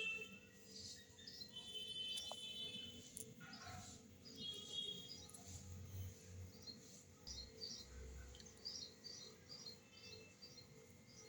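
Faint bird chirping: short, high calls repeated many times, with a few brief trilling phrases, over a low steady hum.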